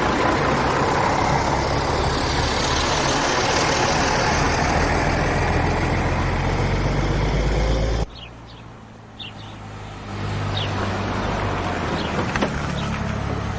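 A motor vehicle's engine and road rumble, steady and loud, cuts off abruptly about eight seconds in. After a quiet moment with a few short high chirps, a vehicle engine's steady low running sound returns.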